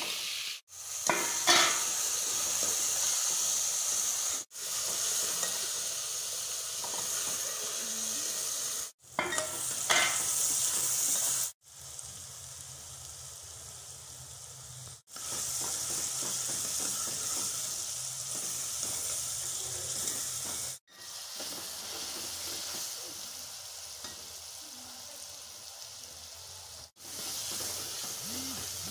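Chopped tomatoes and green peppers sizzling in an aluminium pan while a steel ladle stirs and scrapes against the pan, with a few sharper scrapes near the start and again around the middle. The sizzle breaks off abruptly several times and comes straight back.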